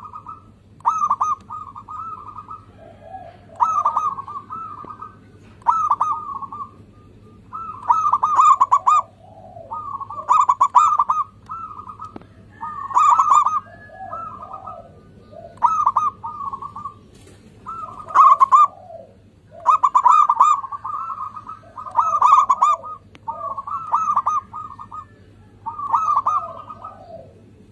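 Zebra dove (perkutut) singing its rhythmic cooing song: short staccato phrases ending in lower coos, repeated about every two seconds.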